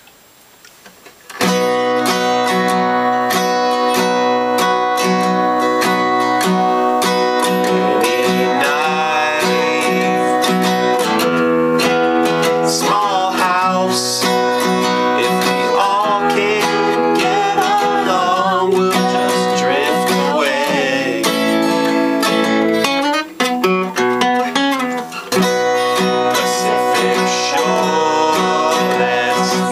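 Acoustic guitar strummed in a steady rhythm, starting after a second and a half of near quiet, with a voice singing over it from about eight seconds in.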